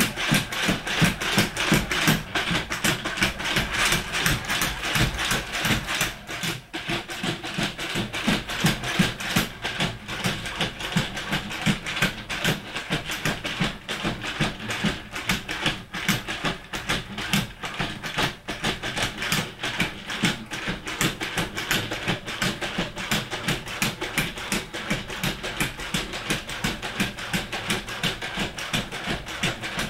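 Quadruped robot dog walking: its feet tap the floor in a quick, steady patter, over a steady electric whine from its leg actuators.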